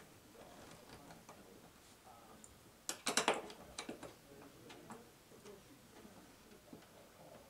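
Small clicks and taps of curtain hardware and tools being handled, faint and scattered, with a quick run of sharper clicks about three seconds in.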